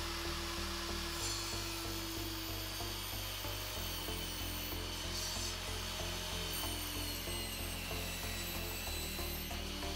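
Background music with a steady bass pulse.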